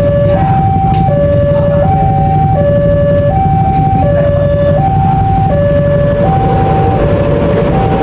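Two-tone hi-lo siren, switching between a higher and a lower note about every three-quarters of a second, over a steady low rumble.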